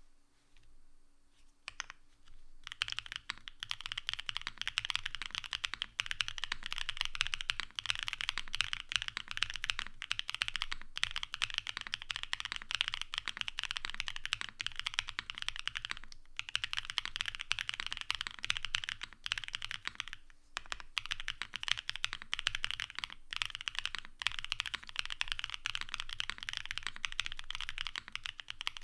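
Gasket-mounted Space80 mechanical keyboard with an FR4 plate, case, IXPE and plate foam, Vertex V1 switches and DMK Relic keycaps being typed on. A few single keystrokes come first, then fast continuous typing runs on, broken by two short pauses.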